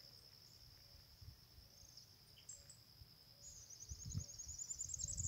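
Insects keeping up a faint, steady, high-pitched drone, with a bird's rapid high trill over it near the end. A few low thumps come in during the last second or so.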